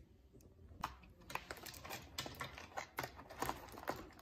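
Hands working at a toy box's plastic packaging and cardboard insert: irregular clicks and crinkles, several a second, starting about a second in.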